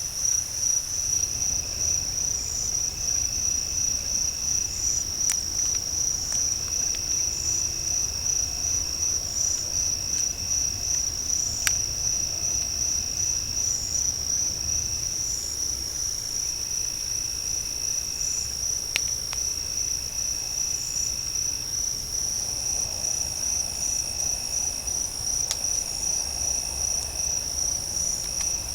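Night chorus of crickets: a steady, high, finely pulsing trill, with a lower trill coming in stretches of a second or two that recur every couple of seconds. A few faint sharp clicks stand out now and then.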